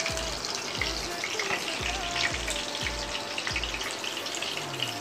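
Beef koftas deep-frying in oil on a low flame: a steady crackling sizzle. Underneath, a faint low thump repeats a little over twice a second and stops near the end.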